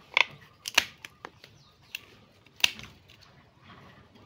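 Bypass pruning shears snipping through the roots of a collected tree stump: several short, sharp snips at uneven intervals, the loudest near the start and past the middle.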